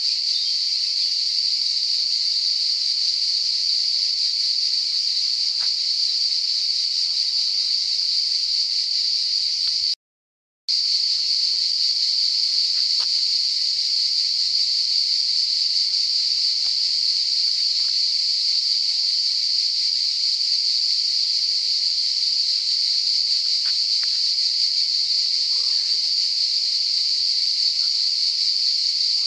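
Steady, loud chorus of summer insects: a continuous high buzz that breaks off for a moment about ten seconds in, with a few faint ticks under it.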